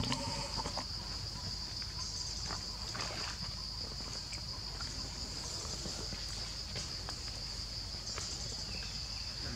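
Steady high-pitched drone of insects in the surrounding forest, with a few soft rustles or taps.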